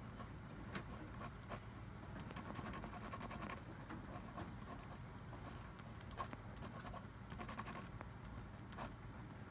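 Faint scratching of a pen tip writing on oil-smeared paper, in short strokes with scattered small clicks and taps of the pen on the sheet.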